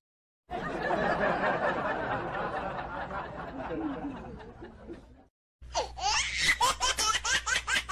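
Laughter sound effects: a fading stretch of laughing, then after a brief gap a quick run of ha-ha-ha laughter near the end.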